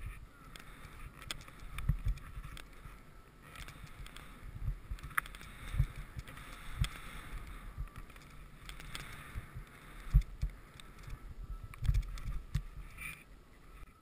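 Skis hissing and scraping through heavy, wind-affected snow, swelling and fading with each turn, with irregular sharp low thumps from jolts on the helmet camera.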